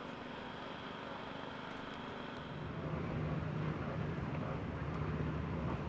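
Classic racing motorcycle engine running at a steady idle, growing louder about halfway through, over a general background hum.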